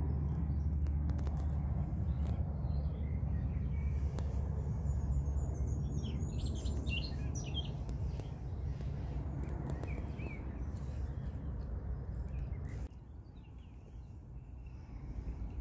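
Small birds chirping a few times over a steady low outdoor rumble. The rumble drops away sharply about thirteen seconds in.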